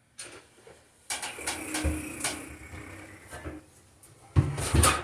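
A series of knocks, clicks and bumps from someone moving about and handling things, with a couple of heavier thumps about four and a half seconds in.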